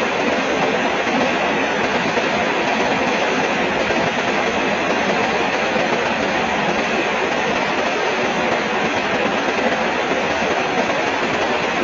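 Steady rain falling, a dense, even hiss of drops that does not let up.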